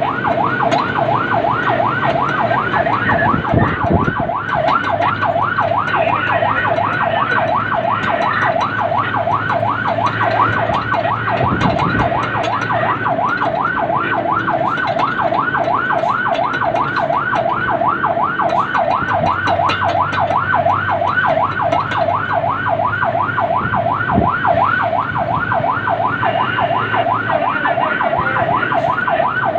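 Fire truck siren on a fast yelp, its pitch rising and falling about three to four times a second without a break, over the truck's engine running.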